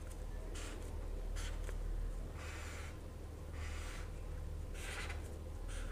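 Felt-tip marker pen drawing on paper: about five short strokes, each a brief scratchy rasp, over a faint steady low hum.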